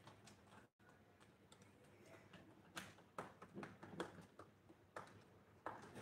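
Faint, scattered small clicks and taps, mostly in the second half, from a cockatiel moving about in the doorway of its cardboard box house.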